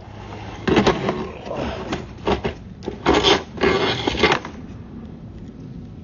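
Irregular scraping and rattling in several bursts, mostly between about one and four and a half seconds in, as the sewer inspection camera and its push cable are pulled back out through the cleanout.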